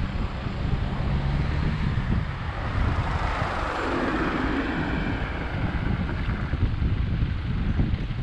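Wind buffeting the camera microphone as it moves along, a steady low rumble. Midway a broader rushing noise swells and fades again.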